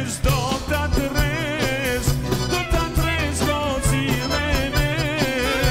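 Albanian folk band playing live: an ornamented, wavering lead melody over a steady beat from frame drum and drum kit.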